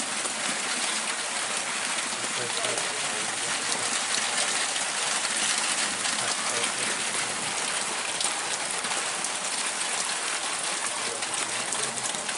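Heavy rain from a thunderstorm falling steadily: a dense, even hiss with the fine patter of individual drops.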